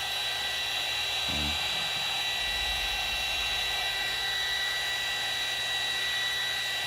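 Heat gun blowing steadily: a constant rush of air with a high fan whine, used to warm tint film.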